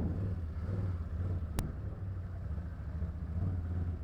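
Can-Am Outlander ATV's V-twin engine running at low speed, a steady low drone, with a single sharp click about a second and a half in.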